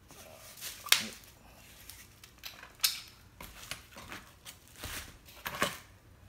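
Handling noise from a plastic pressure washer spray gun and its bubble-wrapped wand being moved about and set down on a leather couch. Three sharp clicks, about a second in, near three seconds and near six seconds, with light rustling between.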